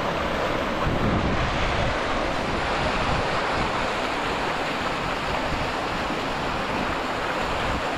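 Glacial meltwater stream rushing steadily over rocks and through rapids.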